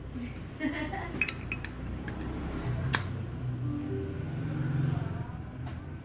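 Light metallic clicks and clinks of a Zippo lighter's metal case and chrome insert being handled, a cluster of small clicks about a second in and one sharper click near the middle.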